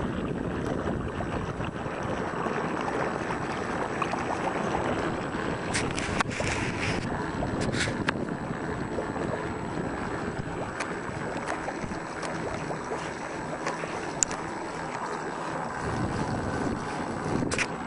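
Steady rush of water along the hull of a pedal-powered recumbent boat underway, mixed with wind noise on the microphone. A few brief clicks sound now and then.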